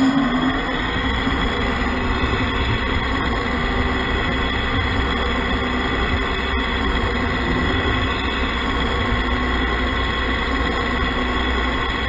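Radio-controlled scale model trucks running: a steady engine-like drone with several held tones that stays even throughout.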